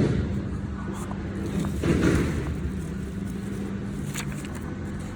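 Steady low mechanical hum and rumble with one held low tone, a brief noisy swell about two seconds in and a single click near the four-second mark.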